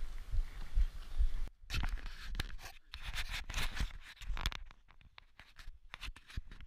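Close rustling and scraping handling noise from the person filming, a dense run of rough scrapes starting abruptly about a second and a half in and thinning to scattered clicks near the end, after a low rumble of wind on the microphone.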